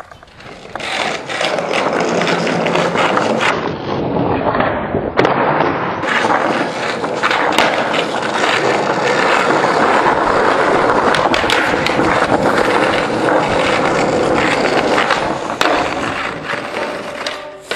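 Skateboard wheels rolling over concrete and paving: a steady rolling noise, with occasional short clacks and knocks from the board.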